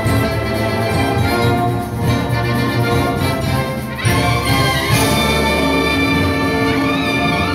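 Wind band of brass and woodwinds playing the closing bars of a piece: full sustained chords, with a high brass line sliding up about four seconds in and rising again near the end.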